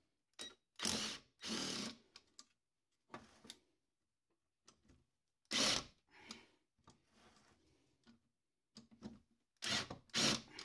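Power driver running in short bursts with pauses between, backing out the four case bolts of a Bosch alternator.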